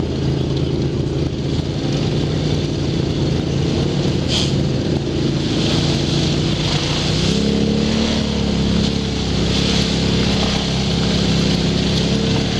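ATV engine running under way on a dirt trail, its pitch rising about seven seconds in as it speeds up.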